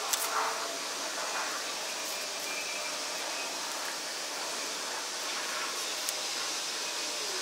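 Steady hiss of background noise, with a light click just at the start and another about six seconds in as a steel rule and pencil are handled on a paper template.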